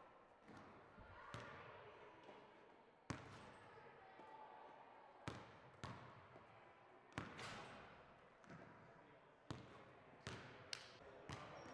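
Basketballs bouncing on a hardwood gym floor: a string of sharp, irregular thumps, mostly about one to two seconds apart, with faint voices behind them.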